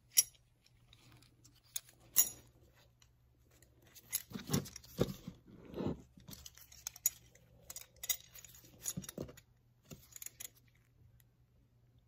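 Gloved hands handling a metal hinge and a putty knife while working two-part epoxy onto the hinge: irregular clicks, light metal clinks and scrapes, with two sharp clicks in the first couple of seconds.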